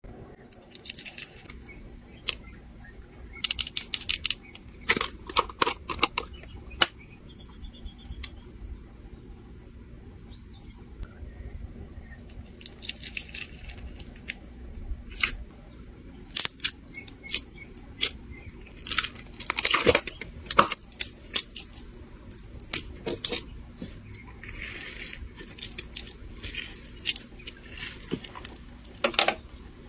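Crunchy slime with a gravel-like texture being squeezed and pressed by hand, giving clusters of sharp crackles and pops with short pauses between them.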